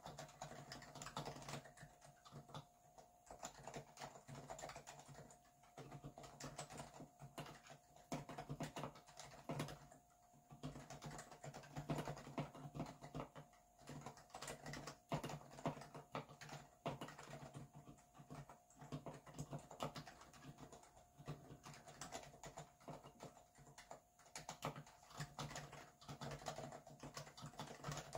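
Typing on a Happy Hacking Keyboard Professional Hybrid Type-S with silenced Topre electrostatic-capacitive (contactless) switches: quiet, continuous runs of keystrokes with a few short pauses.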